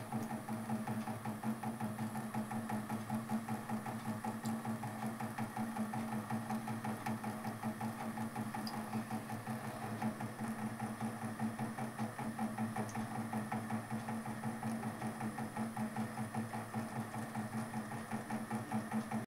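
Eggs boiling in a steel pot on a gas stove: a steady hum with a fast, even rattle of about four beats a second.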